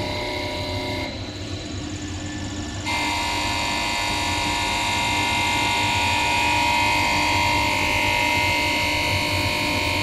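Beacon CR919 common rail injector and pump test bench running a six-injector test: a steady hum from its drive and high-pressure pump with a high whine over it. The sound drops quieter about a second in and comes back louder just before three seconds.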